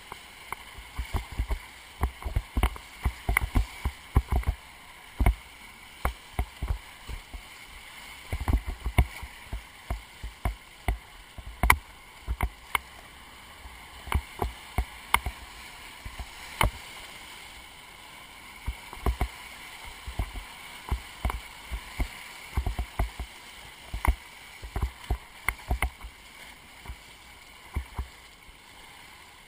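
Whitewater rapids rushing past a kayak, with frequent irregular thumps and knocks as waves slap the hull and the bow-mounted camera. The knocks thin out in the last few seconds.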